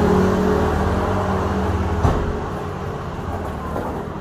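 Motor scooter engines running as the scooters pass close by, their steady hum fading as they move away. There is one sharp knock about two seconds in.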